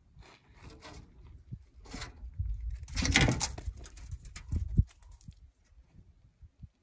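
Rustling and handling noises close to the microphone, in several short bursts with the loudest, rattling one about three seconds in, over a low wind rumble on the microphone.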